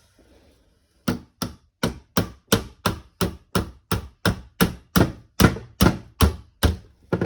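A run of about seventeen sharp knocks at an even pace of about three a second, starting about a second in.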